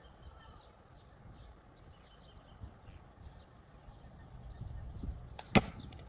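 A 9.5 mm steel ball fired from a slingshot hits the target box with one sharp, loud crack about five and a half seconds in. Faint bird chirps and a low wind rumble run underneath.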